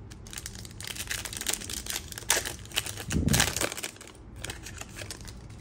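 Foil wrapper of a 2023 Panini Prizm football card pack being torn open and crinkled by hand: a rapid run of crackles and rips that eases off after about four seconds.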